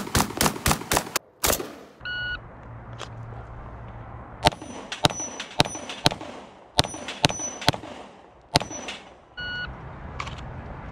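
A quick string of rifle shots, then a shot timer's electronic beep and a run of pistol shots on a steel plate rack, the hit plates ringing with a high clang after the shots. A second timer beep sounds near the end, followed by another shot.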